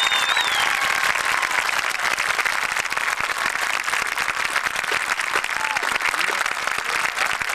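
Crowd applauding and cheering, with a few shouts or whistles near the start.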